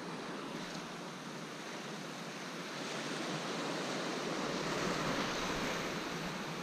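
Sea waves washing and breaking against a rocky shore, a steady surf that swells louder for a few seconds and eases off near the end.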